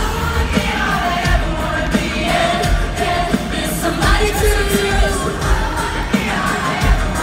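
Live pop band playing, with a woman singing the lead into a handheld microphone over a steady drum beat and electric guitar.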